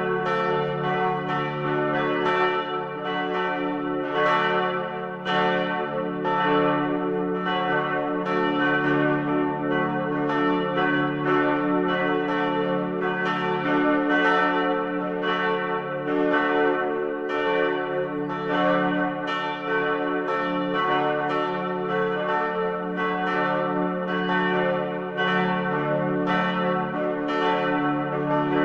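Church bells ringing continuously, a new stroke about every half second, each one ringing on under the next so that the tones overlap.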